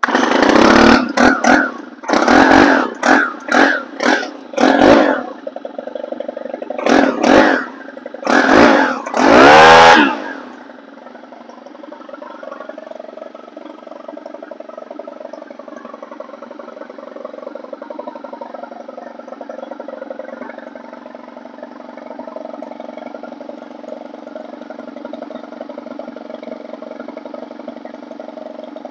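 Stihl 4-Mix four-stroke trimmer engine fitted with a new ignition coil, pull-started with a run of quick recoil pulls and short bursts of firing. It catches about ten seconds in with a brief rev that falls away, then idles steadily, a sign the replaced coil is now giving spark.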